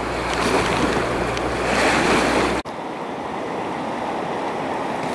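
Rushing river water and wind on the microphone, a steady noisy wash. A low steady hum underneath cuts off abruptly about two and a half seconds in.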